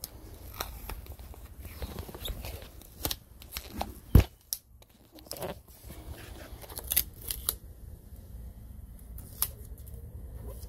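Red tape being pulled off its roll, torn and pressed over door locks and handles: a run of short ripping and crackling sounds with scattered clicks, and one loud knock about four seconds in.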